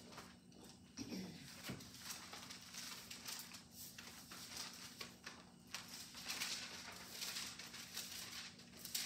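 Thin Bible pages rustling and being flipped as several people leaf through their Bibles, with small scattered taps and crinkles over a faint steady hum.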